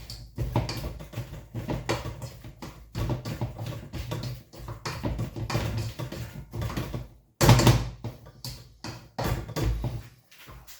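Potato masher knocking and thudding in a pot as boiled potatoes are mashed with butter, in a quick irregular run of knocks with one louder thud about two thirds of the way in.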